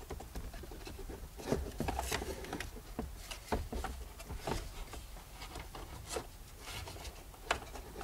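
Irregular light clicks, taps and rubbing of hard plastic dashboard parts being handled and worked back into place around the Mazda MX-5's gauge cluster and infotainment screen.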